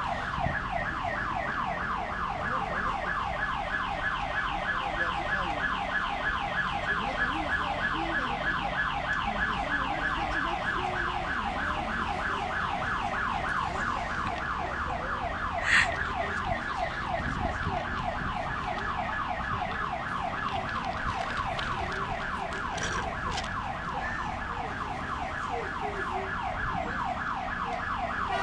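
Electronic alarm siren sounding continuously, a fast repeating upward-sweeping whoop several times a second. A single sharp knock about halfway through, over low traffic rumble.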